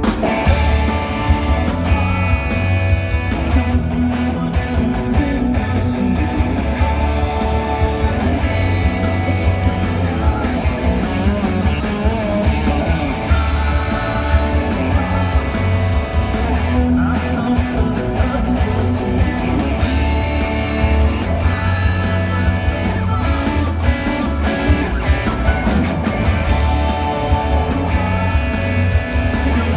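Rock band playing live on stage at sound check, with drums, bass and electric guitar going strongly and steadily throughout, and singing on top, as they repeat a section of a song.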